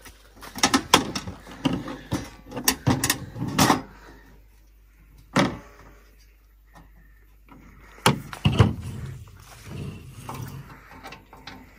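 Camp cooking gear being handled: a run of knocks and clatter as a portable stove case is set on a folding table and gear is pulled from the back of a vehicle. The clatter is heaviest in the first few seconds, with a single knock a little past the middle and another burst of knocks about two-thirds through.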